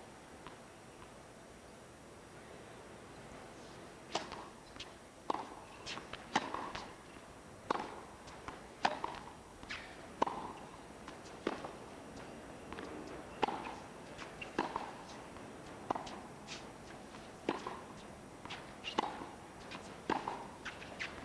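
Tennis rally on a hard court: the ball is struck back and forth by racquets, giving sharp pocks of racquet hits and ball bounces about once a second, starting about four seconds in. Before that there is only the hushed stadium background.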